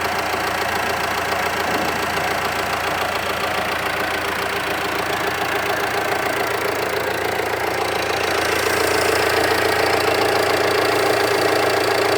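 Jeep Compass 2.0 four-cylinder turbodiesel idling with the clatter typical of a diesel, which is normal for this engine and not a fault. It gets somewhat louder about two-thirds of the way through.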